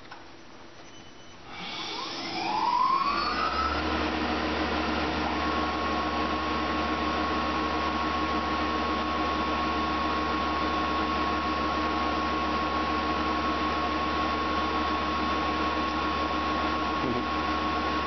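Tormach PCNC 1100 CNC mill starting its cycle: about a second and a half in, the spindle spins up with a rising whine, then runs steadily with a low hum. A steady high whine joins about five seconds in while the 4th-axis rotary unit turns all the way around to find its A0 home position.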